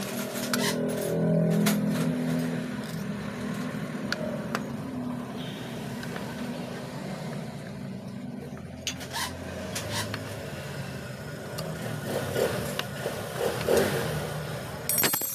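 Scattered metallic taps and scrapes as a long steel rod works inside an aluminium motorcycle water pump housing, at the seat of its seal. Under them a motor vehicle engine runs steadily in the background, loudest in the first few seconds.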